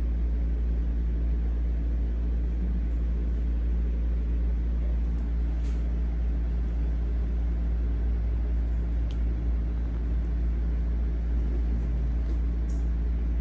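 Steady low mechanical hum made of several held tones, unchanging in level, with a few faint soft ticks over it.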